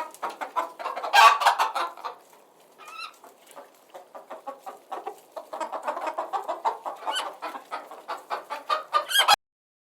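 Chickens clucking, many short calls overlapping, cutting off abruptly near the end.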